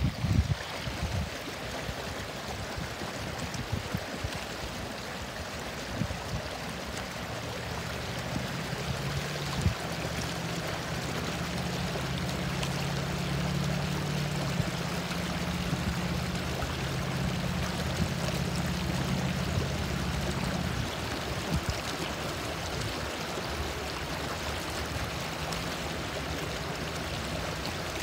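River water pouring over a low stone weir, a steady rush of white water. A low rumble joins in for about a dozen seconds in the middle, then fades.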